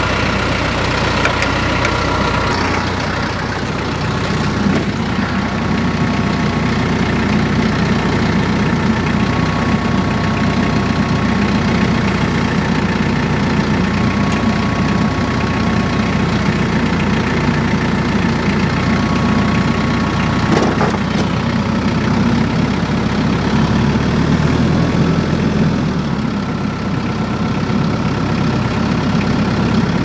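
An engine running steadily at a constant speed, with a faint high whine that comes and goes.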